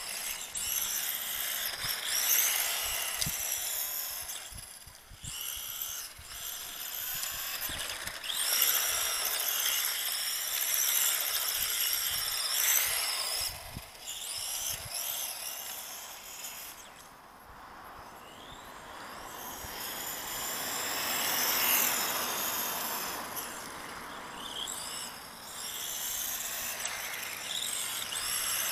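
1/10-scale RC touring car's electric motor whining, its pitch rising and falling as the throttle is worked, with tyre noise on asphalt. It eases off several times, with a longer lull a little past halfway.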